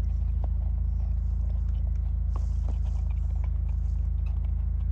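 Blue heeler nosing in the snow and chewing at a ball: scattered small crunches and clicks, over a steady low rumble.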